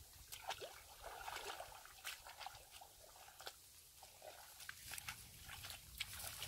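A hoe chopping and scraping into wet mud in shallow water: faint, irregular soft knocks and squelches.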